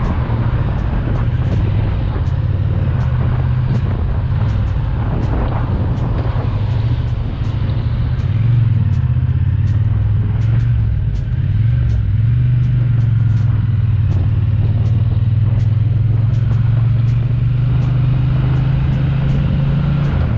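Triumph Bonneville T120's 1200 cc parallel-twin engine running on the move, with wind noise over it. The engine note dips and shifts several times between about seven and twelve seconds in, then holds steady.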